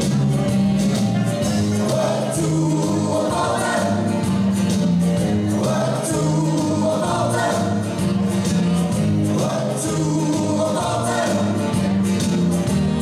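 Upbeat song with several singing voices over a steady, moving bass line, playing loud and continuous as dance music for a madison line dance.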